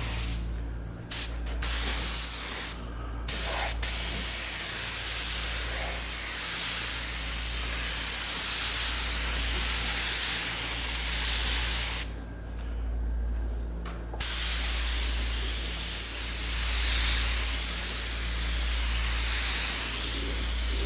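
Spray gun hissing as it sprays a light coat of finish onto a pine cabinet, the trigger released briefly about half a second in, again around three seconds, and for about two seconds in the middle. A steady low hum runs underneath.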